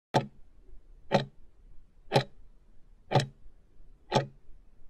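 Countdown timer sound effect: five clock ticks, one a second, counting down the last seconds left to answer.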